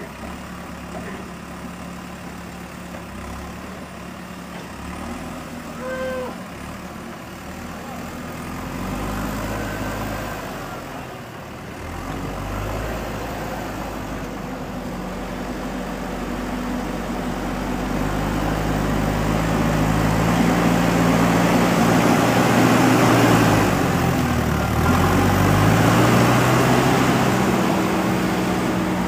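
JCB 3DX backhoe loader's diesel engine running and revving up under working load: its pitch and loudness climb over the second half, drop sharply for a moment, then rise again. A brief high tone sounds about six seconds in.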